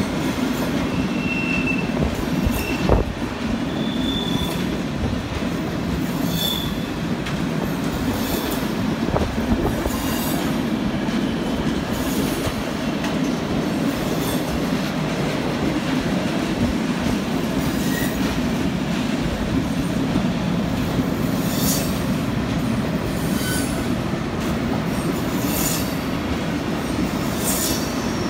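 Freight train of loaded car-carrier wagons rolling past: a steady rumble of steel wheels on the rails, with short high-pitched wheel squeals in the first few seconds and irregular clicks and clacks of the wheels over the track.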